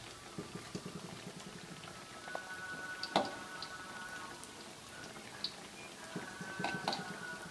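Chicken nuggets deep-frying in hot oil in a wok, a steady sizzle and crackle, with a spatula scraping and knocking against the wok. There is one sharp knock about three seconds in, and a few more clicks near the end.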